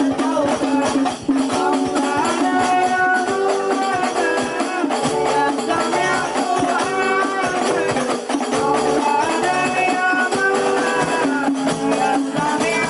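Music with a melody over steady shaker and tambourine-like percussion, thin-sounding with almost no bass.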